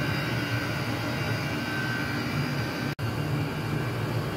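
Chinese diesel air heater running at full power (setting 6): a steady roar of its burner and blower over a low hum. The sound cuts out for an instant about three seconds in.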